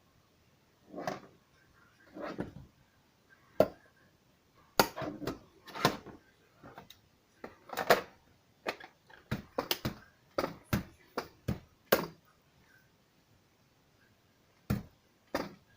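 Hard plastic parts of a Dreame F9 robot vacuum being handled during disassembly: about twenty irregular clicks, knocks and short scrapes, coming thickest in the middle, then a pause and two last knocks near the end.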